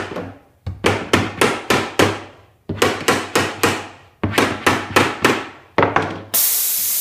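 Hammer tapping on a wooden drawer in quick runs of about five blows, roughly four a second. A loud steady hiss of air starts near the end.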